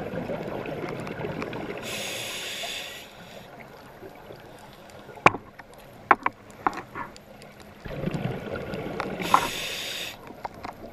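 Scuba diver breathing through a regulator, heard underwater: two rounds of rumbling exhaled bubbles, each with a short hiss, about three seconds apart. A few sharp clicks come in the quieter stretch between them.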